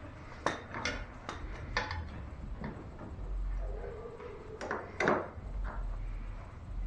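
A series of light knocks and clicks, about seven, from tools and parts being handled, with a brief low hum about halfway through.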